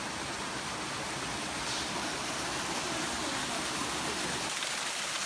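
Steady rushing noise without clear pitch or rhythm, spread evenly across low and high frequencies.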